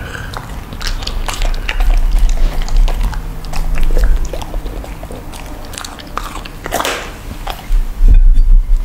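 Flaky pastry crust of a meat-filled mooncake crackling and crumbling as it is torn apart by hand: a dense run of small, crisp crackles. A low thud near the end.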